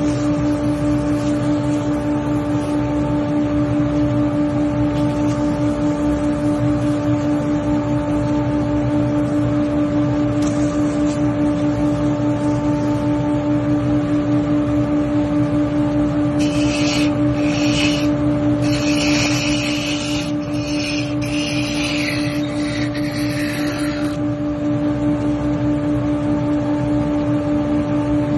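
Wood lathe running with a steady motor hum, with several short bursts of a tool cutting into the spinning wooden spoon blank a little past halfway through.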